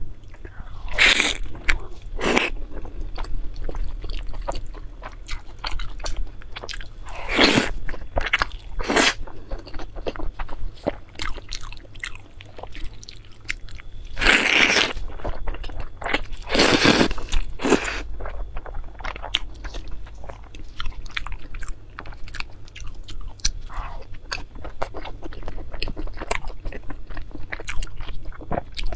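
Close-miked person eating: bites and chewing of soft, saucy rice noodle rolls and dumplings, with several louder wet bursts as mouthfuls are taken.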